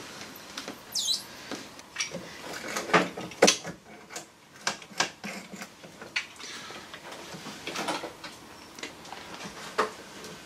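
Rubber windscreen seal being cut and pulled away from the glass: irregular squeaks, scrapes and short sharp ticks of rubber dragging over glass and metal, loudest a few seconds in.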